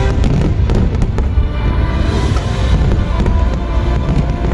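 Aerial fireworks bursting, with several sharp bangs, most of them in the first second and a half, over a constant low rumble. Music plays throughout.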